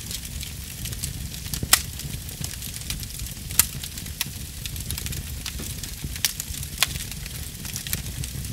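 Steady crackling with scattered sharp pops over a constant low rumble; the loudest pop comes about two seconds in.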